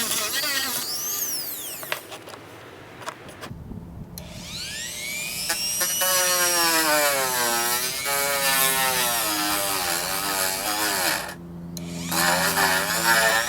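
Handheld rotary tool running, its whine dipping and rising in pitch as it bears on the work. It drops off around two seconds in and again briefly near the end.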